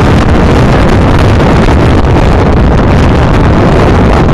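Loud, steady wind rushing over the microphone in a moving car, through an open window at road speed, with the car's road and engine noise underneath.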